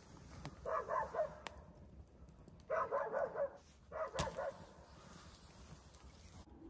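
Animal calls in three short bursts, with a sharp click about four seconds in.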